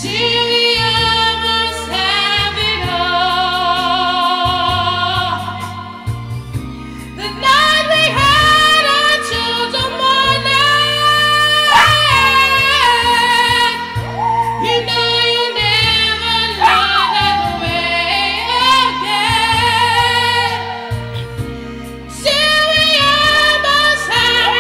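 A small long-haired dog howling along to music, its long wavering howls gliding up and down in pitch over steady low notes from the music.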